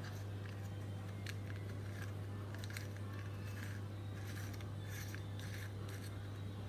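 Faint, irregular light metallic clicks from a Shimano freehub body being turned and fitted together by hand. A steady low hum sits underneath.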